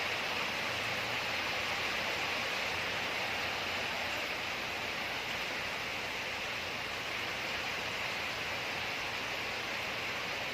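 Steady, even hiss of background noise, with no other sound standing out.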